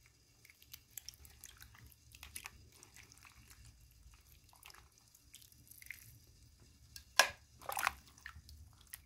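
Hands rubbing and rinsing pieces of salt fish in a plastic basin of cold water: small wet splashes and drips, with two louder splashes about seven seconds in.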